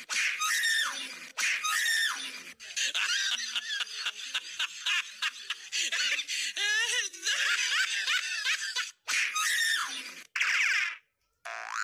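People laughing hard and shrieking, one burst after another, with a couple of brief breaks near the end.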